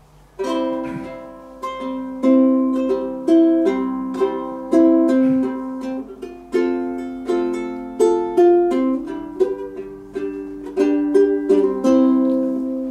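Solo acoustic plucked-string instrument playing a song's instrumental intro, with notes and chords picked in a steady rhythm that ring on between strokes.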